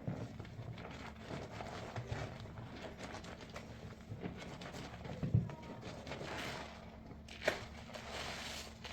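A sponge loaded with soap paste being squeezed and pressed: wet squishing with many small crackles. A low knock about five seconds in and a sharp click about two seconds later.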